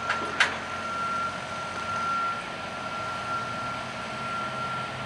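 Construction-site noise: a steady high-pitched tone that swells and fades slightly over a low machinery hum, with two sharp knocks about half a second apart near the start.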